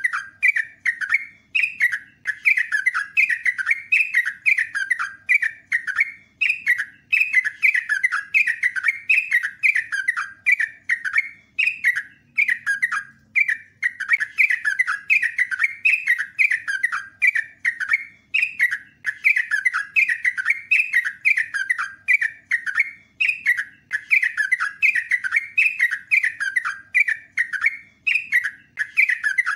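Yellow-vented bulbul singing a long, unbroken rolling song: quick, falling notes several a second, with only brief pauses between runs.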